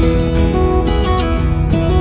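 Background music: acoustic guitar strumming, without vocals.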